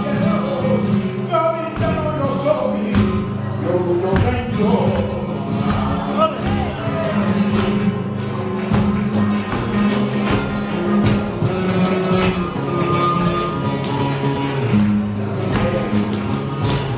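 Flamenco guitar playing alegrías, with rhythmic hand-clapping (palmas) throughout. A man's voice sings over the first several seconds.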